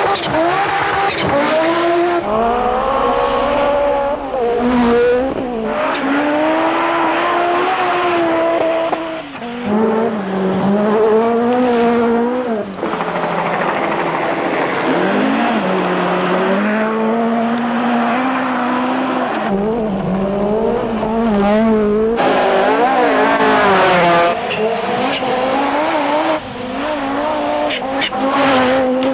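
Group B rally cars' engines driven hard on gravel stages, the note repeatedly climbing and dropping with gear changes and lifts. Several short passes are cut one after another.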